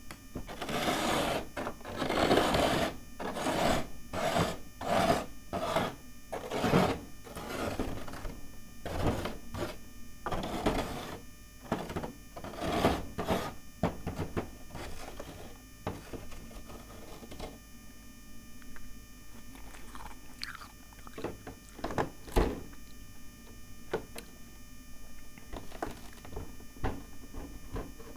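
Spoon scraping frost off a freezer, in a run of rough scraping strokes about one a second. After about fourteen seconds the strokes grow sparser, with scattered sharp clicks, over a faint steady hum.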